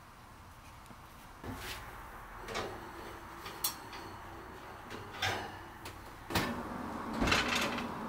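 An oven door being pulled open and a metal baking pan being handled: a series of separate clunks and knocks, the loudest one near the end.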